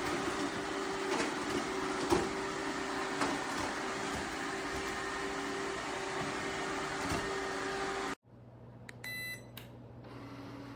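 A household appliance motor running steadily with a hum and scattered faint clicks, stopping abruptly about eight seconds in, followed about a second later by a short electronic beep and then a quieter low hum.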